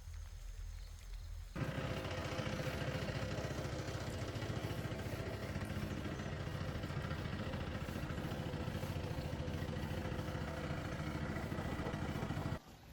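A small engine running steadily with a rapid pulse. It cuts in about a second and a half in and cuts off abruptly near the end.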